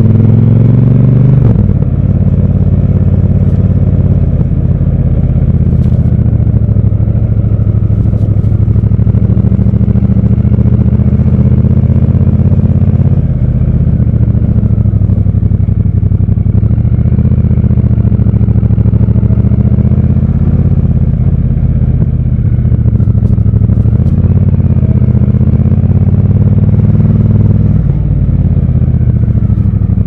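Triumph Scrambler 1200 XC's 1200 cc parallel-twin engine running loud and steady as the bike is ridden, its note dropping and picking back up a few times as the throttle is eased and reopened: shortly after the start, about halfway through and near the end.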